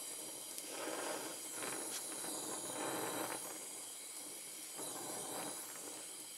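Oxy-acetylene torch flame hissing steadily while brazing a steel hydraulic line into its fitting.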